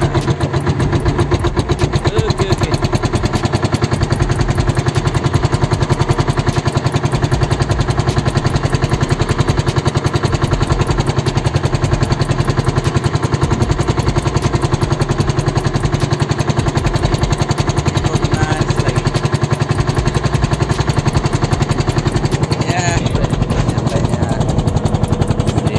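A fishing boat's inboard engine running steadily underway, a fast even thumping.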